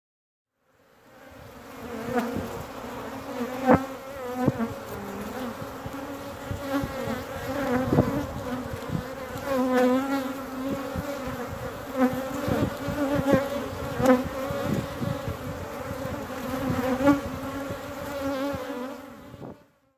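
Honeybees buzzing in a dense crowd close to the microphone: a steady, many-voiced drone with frequent sharp clicks. It fades in about a second in and stops just before the end.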